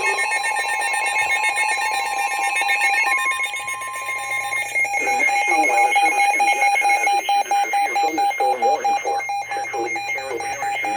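Emergency Alert System alert tones: a loud, steady electronic alarm tone with a step in pitch about three seconds in and again near five seconds. From about five seconds in, a voice or broadcast audio is mixed in under the tone.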